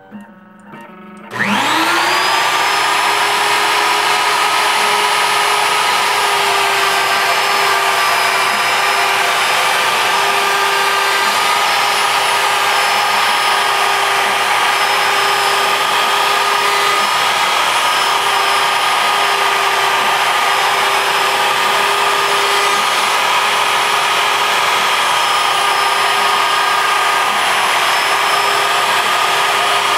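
A CNC router's spindle and its dust-collection vacuum switch on about a second and a half in. They wind up within half a second to a loud, steady whine with several high tones while the bit cuts into MDF. A few faint clicks come before the start.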